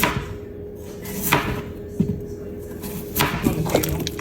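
Kitchen cooking noises: irregular knocks and clatter of utensils and cookware, a few spaced apart and then several in quick succession near the end, over a steady low hum.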